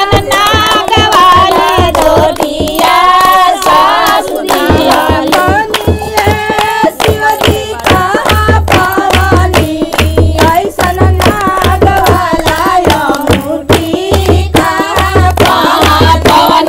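A group of women singing a Bhojpuri Shiv charcha devotional song together, with steady rhythmic hand clapping. From about eight seconds in, a low regular beat joins under the voices.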